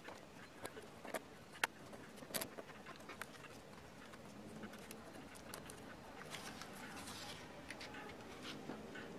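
Faint scratching and light tapping of a ballpoint pen tracing around a paper template laid on a wooden board, with a few sharp clicks in the first few seconds and paper rustling later on as the template is lifted.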